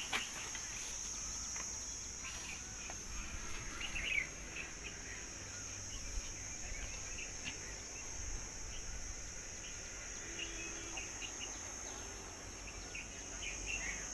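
Insects trilling in a steady high-pitched drone, with scattered short clicks and light rustles, one a little louder about four seconds in.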